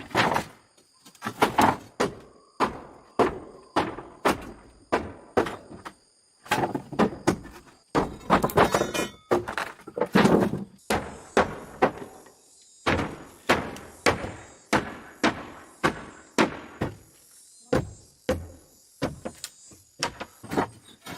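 Repeated heavy knocks, roughly one or two a second, with a short break about six seconds in and a steadier, evenly spaced run of strokes in the second half.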